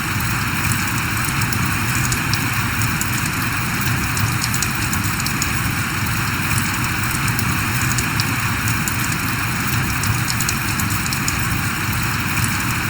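Steady rain falling, a constant even hiss with many small drop ticks scattered through it.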